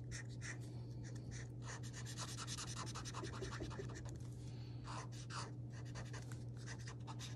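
Mr. Sketch felt-tip marker scratching on paper in many short, quick strokes as small shapes are colored in, over a steady low hum.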